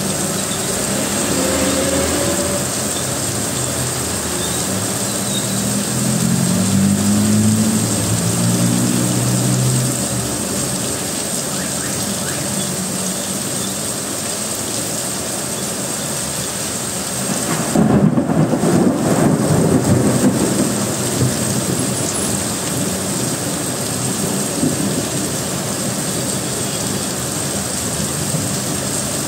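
Heavy rain pouring steadily onto a street, heard from inside a car, with vehicles driving through the water. A vehicle's engine hums past between about six and ten seconds in, and a louder low surge comes about eighteen seconds in.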